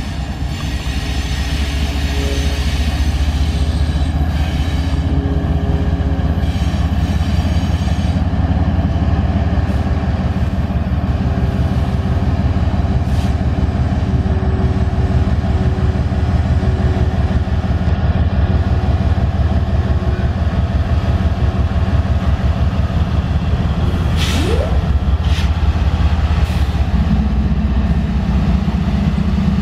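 Diesel-electric freight locomotives, one of them a Tier 4 EMD SD70ACe-T4, running at low speed with a deep, steady engine rumble. There is a short hiss about three-quarters of the way through, and the rumble grows louder near the end.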